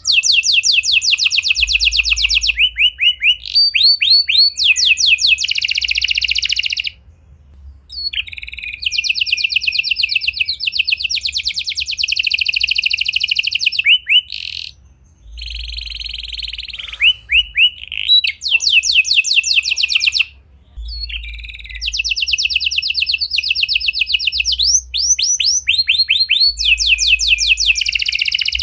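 A canary singing a long, loud song of fast trills and rapidly repeated rolling notes, with a few short pauses between phrases.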